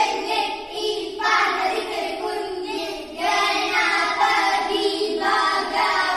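A child's voice chanting a sing-song counting-out rhyme in Malayalam, with short pauses about a second and three seconds in, as one girl points to each child in the circle in turn to pick who will be the seeker.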